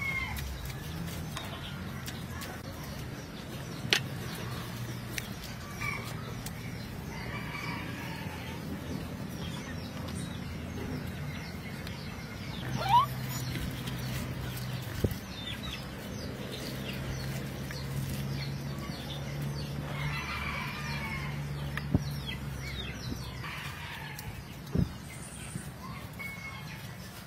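Chickens clucking and a rooster crowing in the background, a few short calls now and then, over a steady low hum. Several sharp clicks stand out, the loudest about halfway through, from a metal spoon knocking against the serving bowl.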